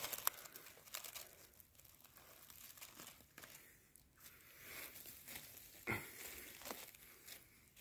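Faint, irregular rustling and crunching of forest-floor litter (leaves, twigs, moss) disturbed by a person moving about, with one sharper crackle about six seconds in.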